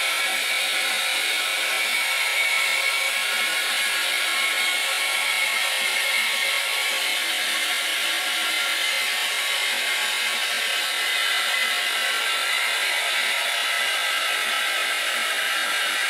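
Toilet flush water, pitched up into a high, steady hissing rush of running water with no bass.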